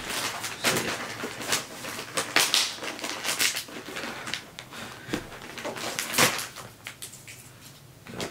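White plastic poly mailer bag crinkling and rustling as it is torn open and handled by hand, in irregular sharp crackles, the loudest a little past six seconds in.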